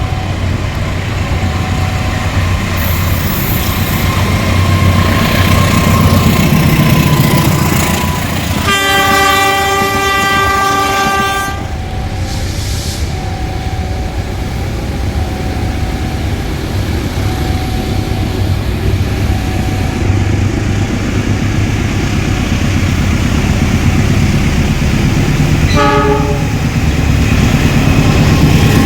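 GE diesel-electric locomotive engine running with a heavy low rumble that grows louder toward the end. The air horn sounds one long blast of about three seconds, then a short toot near the end.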